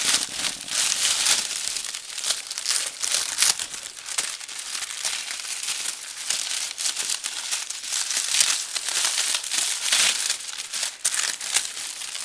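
Paper and cardboard packing material being crumpled and pulled out of a box, with irregular crinkling and rustling and a few brief tearing sounds.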